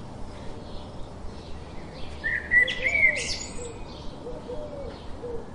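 Wild birds chirping and calling, with the loudest burst of whistled notes about two and a half seconds in. Low, repeated cooing notes come in during the second half.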